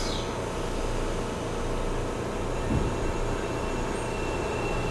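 Seibu 9000-series electric train heard from inside a motor car as it pulls slowly away from a station: steady running and rolling noise. There is a single low thump near the middle, and a faint steady high whine from the traction equipment sets in about two-thirds of the way through.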